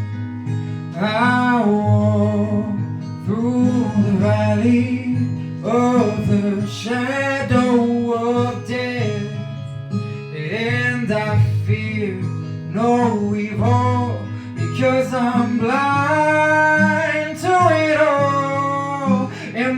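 Music: an acoustic guitar strummed steadily while a voice sings melodic phrases over it.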